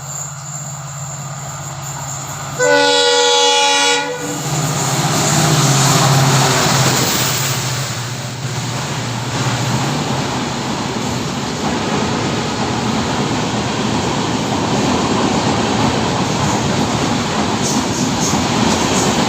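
WDP4D diesel locomotive sounding its horn in one loud blast of about a second and a half, nearly three seconds in, over the low hum of its diesel engine. The engine rumble swells as the locomotive passes at speed, then gives way to the steady rush and wheel clatter of the express coaches running through.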